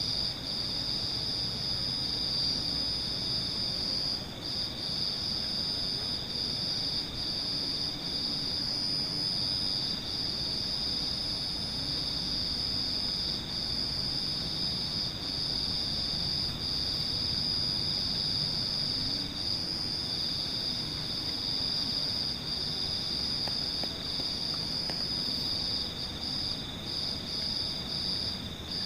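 Steady high-pitched chorus of night insects chirring, with short breaks about every second and a half.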